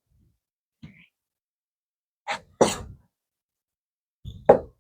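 Short, sharp knocks and thuds from cutting raw potatoes and putting the pieces into a crock pot: a faint one about a second in, then two pairs, about two and a half and four and a half seconds in.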